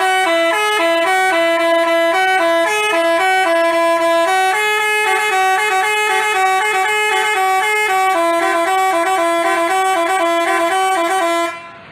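Basuri telolet horn, an Indonesian multi-tone bus horn, playing a fast melody of stepping notes, two tones sounding together; it fades out just before the end.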